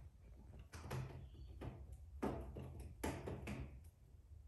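A cat scratching at a round cardboard scratcher, several short scratching strokes over a faint steady hum.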